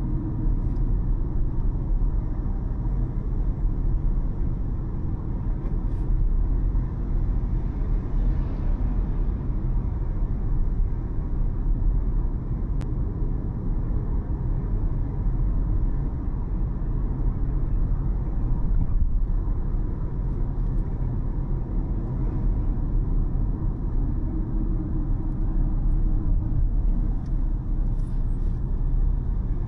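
A car driving along a city road: steady low rumble of engine and road noise.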